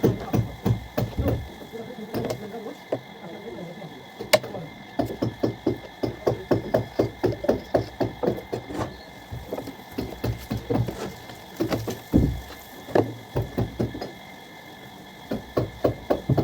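Hammer blows knocking in quick runs, about three to four strikes a second, with short pauses between runs. A faint steady high whine runs underneath.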